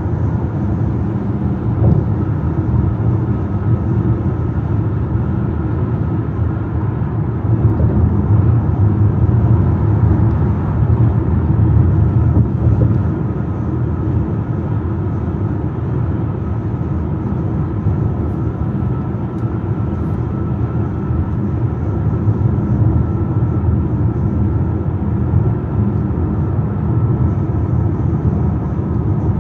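A car driving at road speed: a steady low rumble of tyres and engine, swelling a little partway through.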